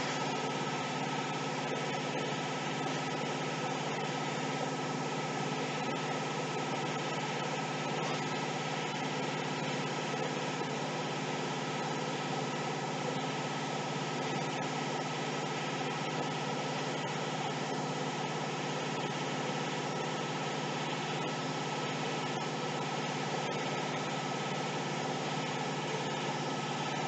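Steady mechanical hum with several constant tones, unchanging in pitch and level.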